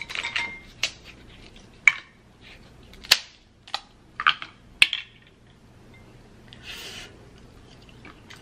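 Cooked snow crab leg shells being cracked and snapped apart by hand: a string of sharp cracks over the first five seconds, then a short soft hiss about seven seconds in.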